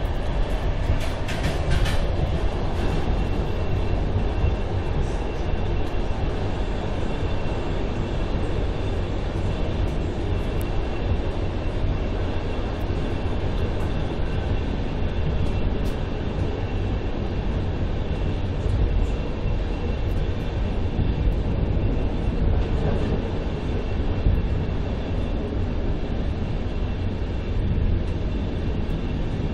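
Passenger train running, heard from inside the carriage: a steady rumble of wheels and running gear, with a few brief rattles about a second and two seconds in.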